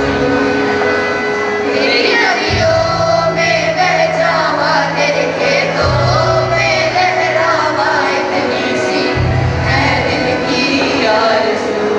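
A song sung over music, with a sung melody above sustained keyboard-like chords and a deep bass note that changes about every three seconds.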